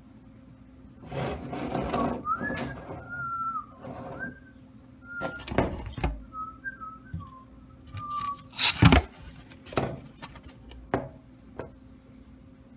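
A person whistling a wavering tune, then one short, loud blast of Hot Shot aerosol insect spray about 8.5 seconds in, with a few shorter clicks and hisses around it.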